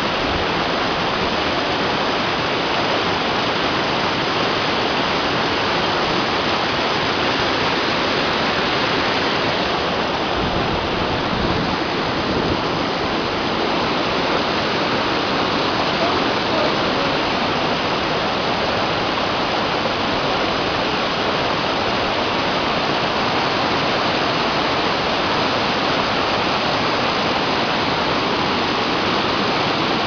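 Waterfall: whitewater cascading down over boulders and logs, a steady rushing of water.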